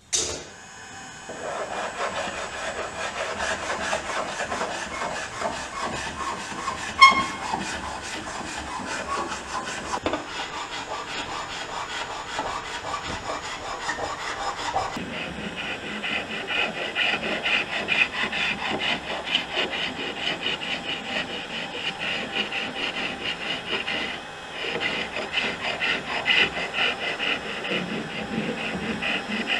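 Heat gun blowing steadily while a hand scraper is pushed over softened old varnish on wood, in repeated scraping strokes, stripping the finish off a plywood dinghy's deck and benches. A single sharp knock about seven seconds in.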